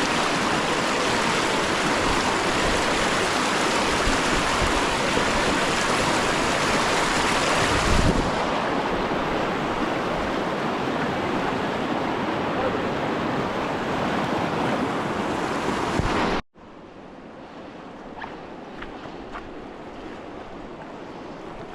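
Loud, steady rushing noise of water and wind, changing slightly about eight seconds in, then cutting off abruptly about sixteen seconds in to a much quieter background with a few faint ticks.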